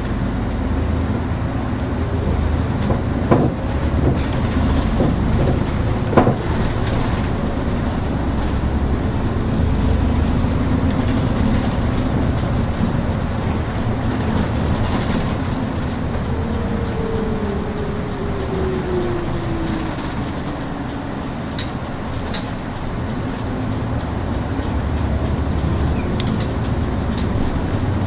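City bus heard from inside the cabin while driving: steady engine and road rumble, with a couple of sharp knocks or rattles a few seconds in and a whine that falls in pitch about two-thirds of the way through.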